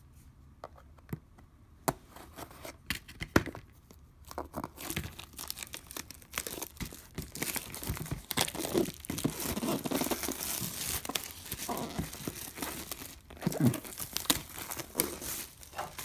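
Clear plastic shrink-wrap being torn and crumpled off a cardboard box: a few scattered clicks at first, then dense crinkling and tearing through the middle, with sharper crackles near the end.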